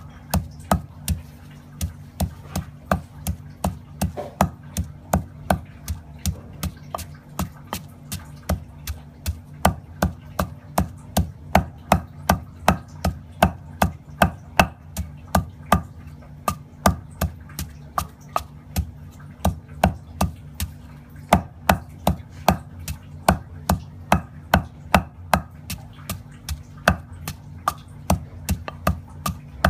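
Wooden pestle pounding lemongrass paste in a heavy stone mortar: a steady rhythm of dull thuds, about two strokes a second.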